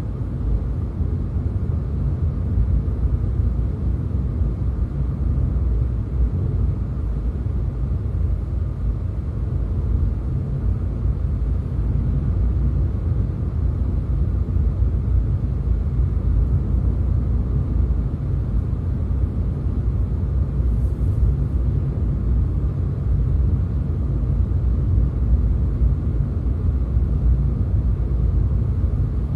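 Steady low rumble of a car driving at road speed: engine and tyre noise.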